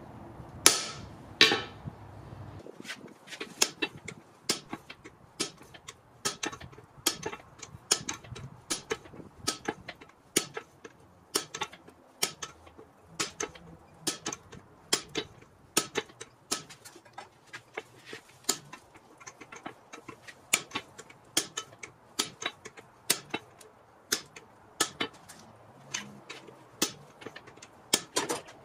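Hand hammer striking a handled hot punch driven into a glowing steel billet on the anvil: sharp metallic clinks at about two blows a second, punching the eye hole for a rounding hammer head. The two blows about a second in are the loudest and ring.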